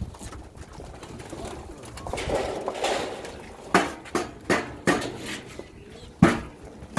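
Birmingham roller pigeons cooing in their loft. In the second half comes a series of sharp knocks, the loudest near the end.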